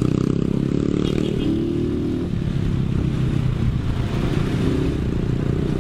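Dirt bike engine running while being ridden, a steady rumble.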